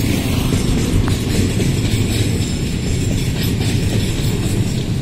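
Container freight train rolling past close by: a steady loud rumble of wagon wheels on the rails, with faint clatter.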